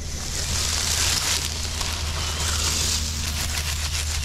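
Radio-controlled Max D monster truck crawling through dry fallen leaves: the leaves crackle and crunch under its tyres over a steady low hum from its electric drive.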